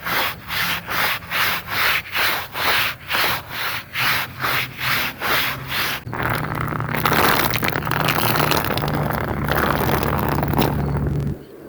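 A carpet being scrubbed in quick, even back-and-forth strokes, about three a second, over a low motor hum. About six seconds in, the strokes give way to a steady scrubbing-machine noise that cuts off suddenly near the end.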